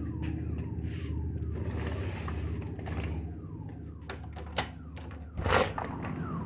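A car alarm outside sounds a falling whoop, repeating about two to three times a second, over a low steady hum. Near the end come a few sharp clicks and a louder thump from the room's door being unlocked and opened.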